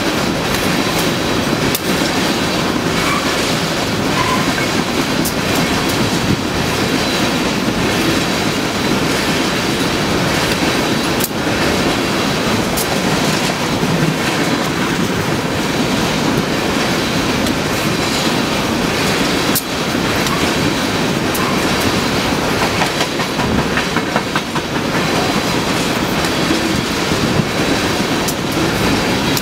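Canadian Pacific freight train's cars rolling past close by: a steady rumble of steel wheels on rail with clickety-clack over the rail joints. A few sharp clicks stand out.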